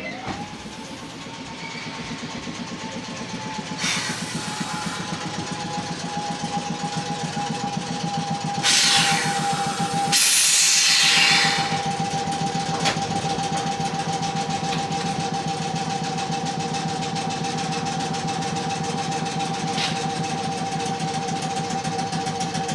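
Electric train's onboard machinery running with a steady whine, which rises into pitch in the first second, over a fast, even beat. Loud hisses of air come about 4 seconds in and from about 9 to 11 seconds in, the later one falling in pitch.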